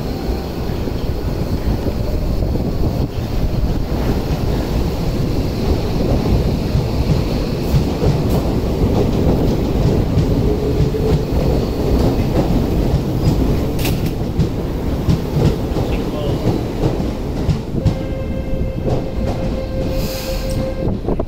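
Commuter train moving through the station: a steady rumble of wheels on rail. About halfway through a short rising electric motor whine is heard, and near the end a steady tone.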